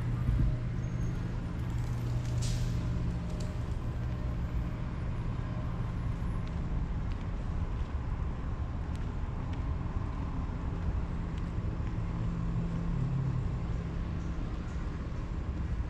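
Steady low mechanical hum, one low pitch held throughout with a faint higher whine above it. A short high chirp cuts in about two and a half seconds in.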